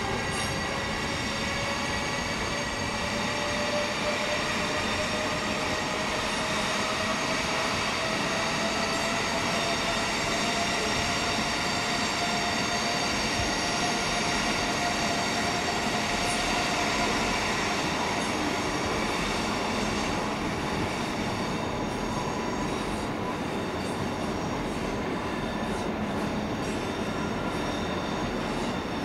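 Eurostar Class 374 (e320) electric high-speed train running slowly past at a steady level. A set of steady high whining tones sounds throughout, and one tone rises slowly in pitch over roughly the first eighteen seconds.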